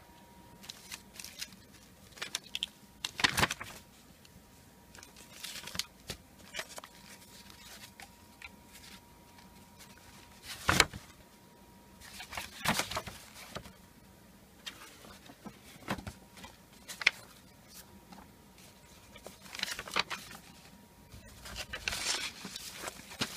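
Construction paper rustling and crackling in irregular short bursts as handmade paper cards are opened and leafed through by hand, a few handlings louder than the rest.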